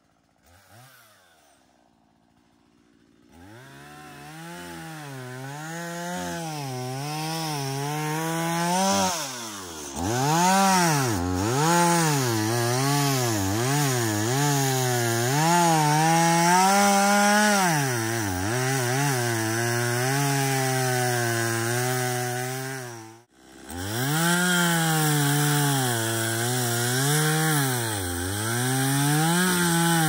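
Gas chainsaw starts up a few seconds in and runs, its engine pitch rising and falling over and over as the throttle is worked.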